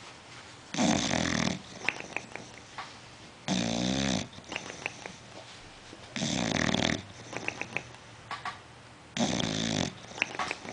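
Bulldog snoring in its sleep: four loud snores about three seconds apart, with faint clicks between them. Such snoring is typical of the breed's short, flat-nosed airway.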